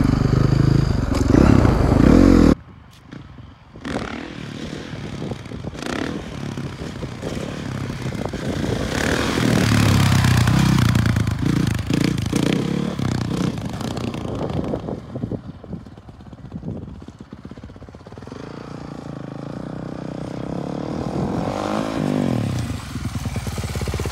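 Honda CRF450R's single-cylinder four-stroke engine. It runs loud and close for the first couple of seconds, drops away abruptly about two and a half seconds in, then is heard from farther off as the bike is ridden in wheelies: it swells around ten seconds in, falls back, and rises again near the end.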